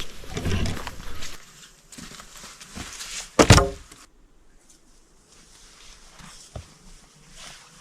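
Footsteps on the forest floor for the first second or so, then a single loud, short wooden knock about three and a half seconds in, followed by quiet with a few small ticks.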